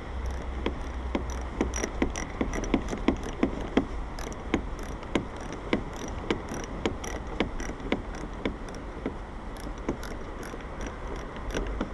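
Ratchet wrench clicking over and over, a few clicks a second in short uneven strokes, as a side-mirror mounting bolt is tightened a little at a time.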